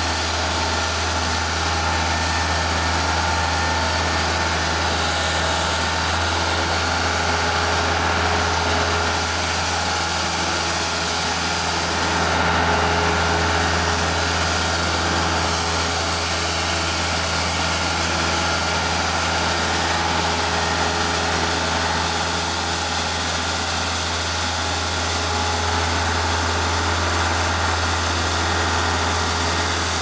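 Skid steer loader's engine running steadily while its angle broom attachment spins, sweeping snow.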